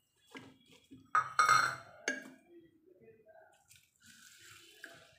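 Metal kitchenware clattering against a pressure cooker as ingredients are tipped into it: a few knocks and a ringing clank, loudest in the first two seconds, then quieter handling noise.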